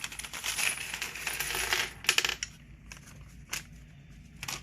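Small metal items rattling and clinking as they are handled and moved about, then a brief clatter and a few separate sharp clicks.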